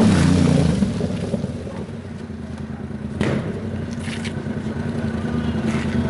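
Yamaha MT-07 parallel-twin engine with a hand-made exhaust, loud as the bike passes close at the start, then fading within the first second. After that a quieter engine runs steadily underneath, with a few short sharp clicks.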